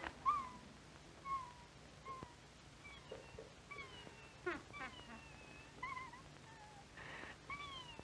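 A small cartoon bird's voice giving short, high, wavering whimpering cries, about one a second, with a few faint clicks between them.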